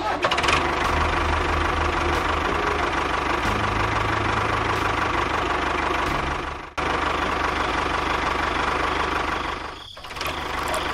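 Steady engine-like running sound with a low hum. It cuts off sharply for an instant about two-thirds of the way through, then dips briefly near the end.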